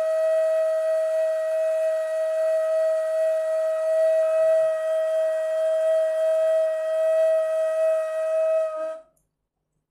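Ney, an end-blown cane flute, holding one long steady note with a breathy edge; the note stops abruptly about nine seconds in.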